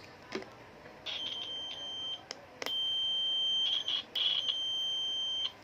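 Digital multimeter's continuity buzzer giving a steady high-pitched beep as its test probes make contact, sounding three times with short breaks and light clicks of the probes touching between them.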